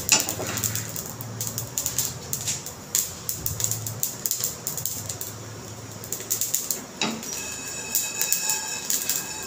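Coriander and cumin seeds dry-roasting in a small aluminium pan over a gas flame, crackling and rattling in quick irregular clicks as the pan is moved.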